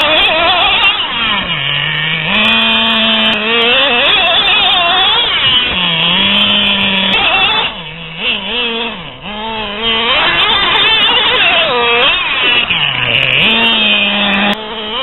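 Traxxas Revo 2.5 RC truck's small nitro engine running at high revs, its pitch dropping and climbing again several times as the throttle is eased off and reopened.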